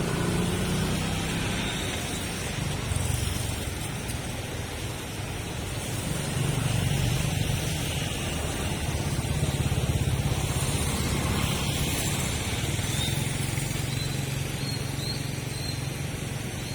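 Street traffic: engines of passing cars and motorbikes, a steady low hum that swells and fades as vehicles go by.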